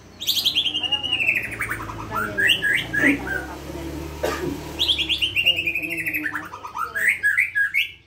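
White-rumped shama (murai batu) singing: twice a long trill of rapid pulses falls from high to low pitch over about a second and a half, each time followed by a few short, sharp higher notes.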